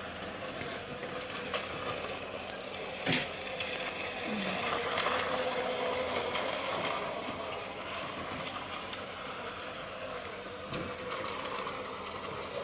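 Toy train's small electric motor whirring steadily as it runs along its plastic track, with a few sharp clicks about three to four seconds in.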